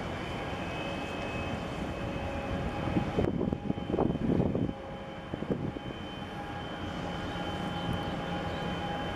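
Steady low rumble with a faint steady hum from a large container ship passing close by under way. About three seconds in, a louder, uneven rush lasts a second or two, then the steady rumble resumes.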